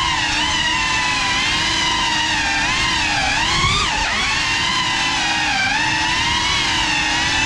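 Cinelog 35 cinewhoop FPV drone's 6S motors and propellers whining, the pitch rising and falling continuously with the throttle as it flies.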